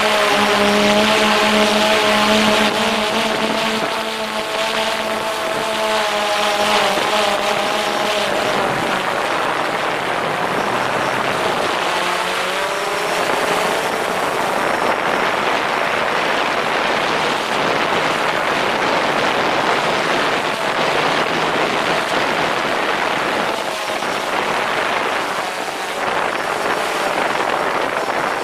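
DJI Phantom 4 quadcopter's motors and propellers whirring in flight, picked up close by a camera mounted under the drone. A whine of several steady tones holds for about the first eight seconds and bends in pitch about twelve seconds in, then gives way to an even rushing noise.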